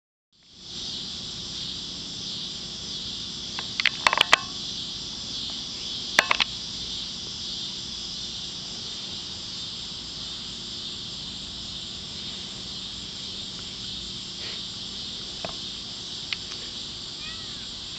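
Steady, pulsing chorus of insects in summer heat, with a faint low steady hum beneath it. A few sharp clicks come in two quick clusters about four and six seconds in.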